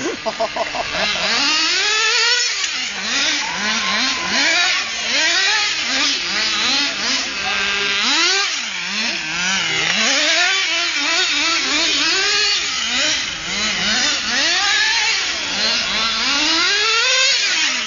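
Small nitro engine of an HPI radio-controlled car, revving up and down over and over as the car is driven around. Its pitch keeps swooping high and dropping back.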